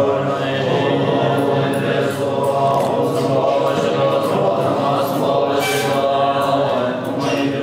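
A group of Kagyu Tibetan Buddhist monks chanting prayers together, many male voices in a steady, continuous drone.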